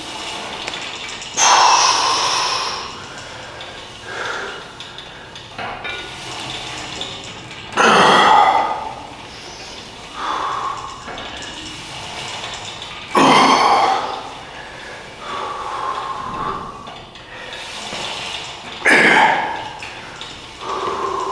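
A man's forceful exhalations, one loud breath about every five or six seconds, with softer breathing between, as he strains through slow reps of a single-arm cable pulldown.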